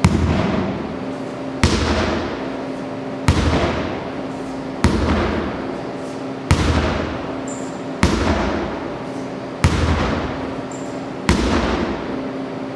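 A 10-pound sledgehammer slamming down onto a tractor tire, eight heavy strikes at an even pace of about one every second and a half, each dying away over about a second.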